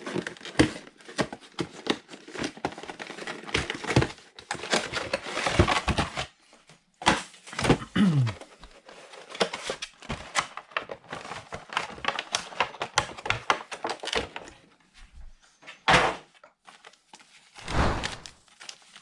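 A Pokémon trading-card collector box being ripped open and its packaging handled: tearing, scraping and rustling for most of the time, then a couple of separate thuds near the end as contents are set down.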